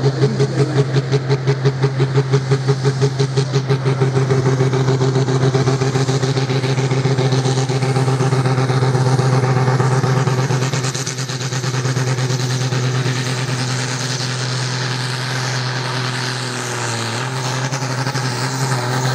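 Tractor-pulling vehicle's engine running hard and steadily. For the first few seconds it has a regular pulsing beat, several a second, which smooths out about four seconds in. The level falls slightly a little past halfway.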